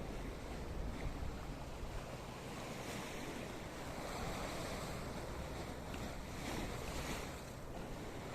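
Sea waves breaking and washing on the shore, a steady rush that swells about four seconds in and again near seven seconds, with wind buffeting the microphone.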